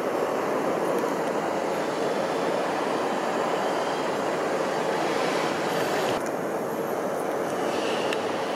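Steady rushing noise of vehicles, even in level with no distinct clicks or tones.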